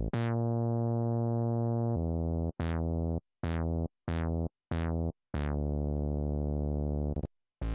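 Mini-G 3 software synthesizer playing its 'BASS - 6' bass preset: seven deep notes, a long one, five short ones and a long one again, each starting bright and quickly dulling to a steady, buzzy tone.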